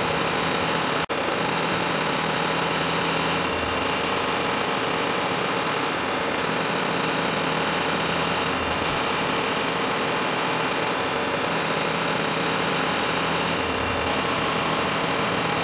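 Milling machine cutting aluminium with an end mill: the spindle and cut run steadily, with a high whine that comes and goes every few seconds as the cutter moves along the part. There is one brief dropout about a second in.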